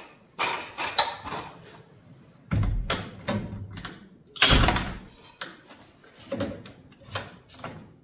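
Irregular knocks and clatter of tools being worked against a metal garage door panel, with one louder half-second burst about four and a half seconds in.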